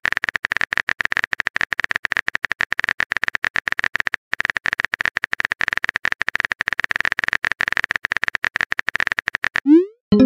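Typing sound effect of a texting-story app: a rapid, even stream of keyboard clicks that pauses briefly about four seconds in. Near the end comes a short rising bloop, the message-sent sound, then a brief tone.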